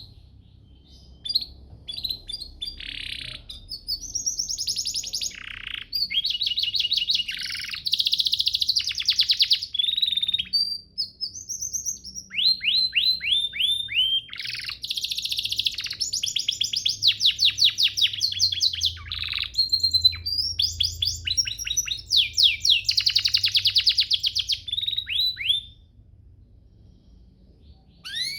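Domestic canary singing a long song of rapid trills and fast runs of repeated notes, phrase after phrase with only brief gaps. The song stops about two seconds before the end.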